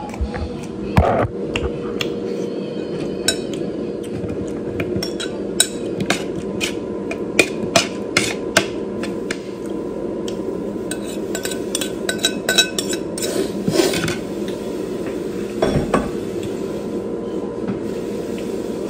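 Kitchen utensils clinking and knocking against pots and dishes in a string of sharp, irregular taps, over a steady hum.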